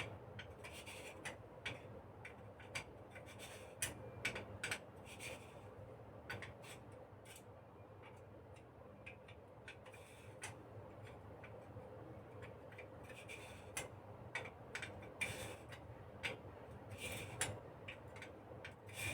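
Faint, irregular metal clicks and short scraping as the flame safety lamp's metal parts are handled and its glass retainer ring is turned down with a retainer key. A low steady hum sits underneath.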